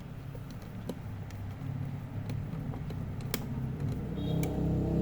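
Scattered light clicks and taps of small laptop hardware being handled and pressed into place, over a low steady rumble that swells near the end as background music comes up.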